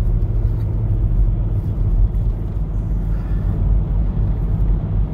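Steady low drone of a 2007 Toyota Highlander's V6 engine and road noise, heard inside the cabin while climbing a slight hill, with the automatic transmission slipping on the climb.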